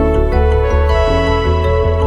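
Background music: sustained, gently changing chords over a steady bass, in a calm new-age style.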